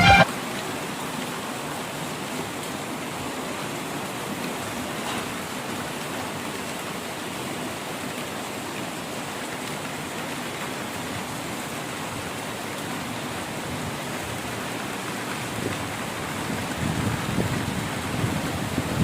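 Steady rain falling, an even hiss. Near the end a louder, uneven low rumble comes in over it.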